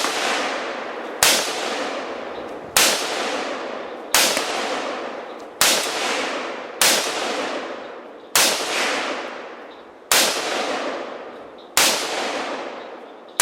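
Gunshots fired one at a time, about one every second and a half, roughly nine in all. Each has a sharp crack followed by a long rolling echo that fades before the next shot.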